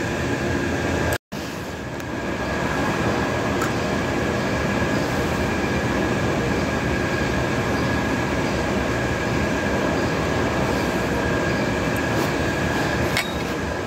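Steady mechanical running noise, an even rushing hum with a thin steady whine over it, cut by a brief dropout about a second in.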